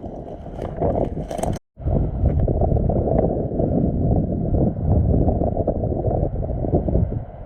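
Rumbling, crackling wind and rubbing noise on a body-worn camera's microphone, with a few sharp clicks in the first second and a half. The sound cuts out completely for a moment about 1.6 seconds in.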